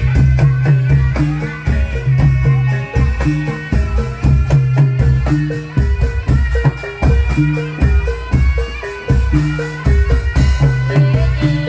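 Live Javanese folk ensemble music played for a dawangan performance: loud, rhythmic drum strokes under a repeating pattern of short pitched notes.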